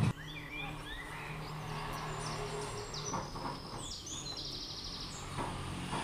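Small birds chirping, a run of short rising and falling calls with a rapid trill about four seconds in, over a faint steady low hum.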